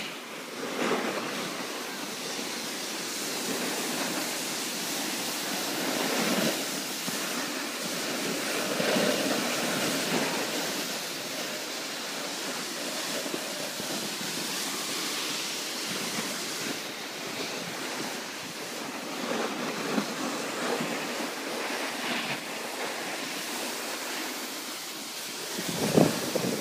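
Wind rushing over the camera microphone during a downhill run, mixed with the steady hiss and scrape of a snowboard sliding over packed snow; a sharper scrape comes near the end.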